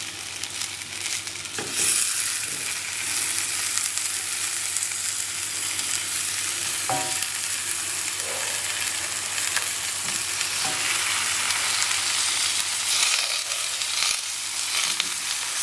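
Onions frying in ghee in a dark steel pan: a steady sizzle that gets louder about two seconds in, as raw chicken legs are laid on top of the onions, with a few soft knocks as the pieces go down.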